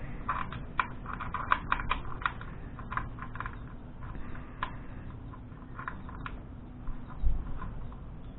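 Light, irregular clicking of a socket ratchet and metal parts as the motorcycle's oil drain bolt is refitted with a new crush washer, with clicks clustered in the first few seconds and one dull thump about seven seconds in.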